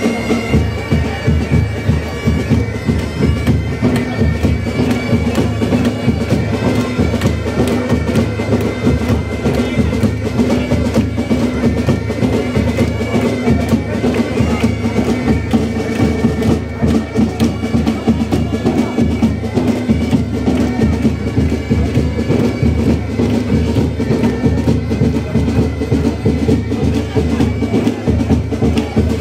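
Bagpipes playing a melody over a steady drone, with drums beating rapidly underneath.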